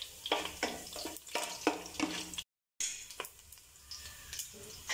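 A wooden spatula stirring whole spices in a pot: a run of short scraping strokes against the pan, then quieter after a short break.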